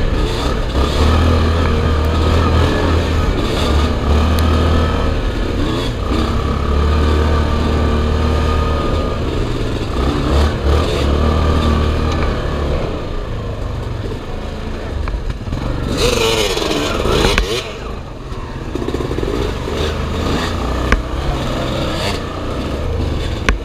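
ATV engine running under throttle on a rough trail, its pitch rising and falling with the throttle. About sixteen seconds in there is a brief loud rush of noise.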